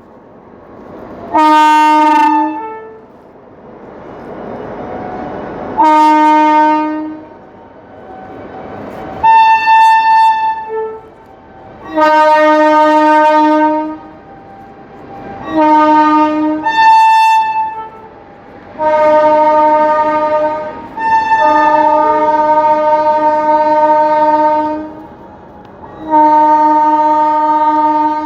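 WAP-7 electric locomotive's dual-tone horn sounding in a series of about eight blasts. The blasts alternate between a lower blare and a shrill high tone; some are short and others are held several seconds. A softer rushing noise fills the gaps between blasts.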